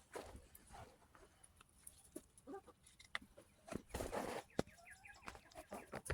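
Hens pecking at food, with scattered sharp taps and a few soft clucks. A longer call comes about four seconds in.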